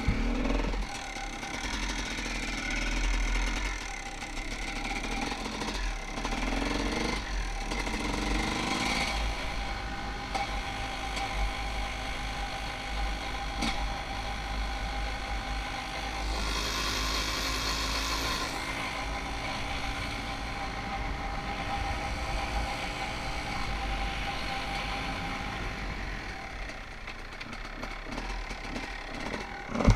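Dirt bike engine running while riding, heard from a helmet-mounted camera with a low wind rumble. The revs rise and fall a few times, with a short hissing rush about halfway through.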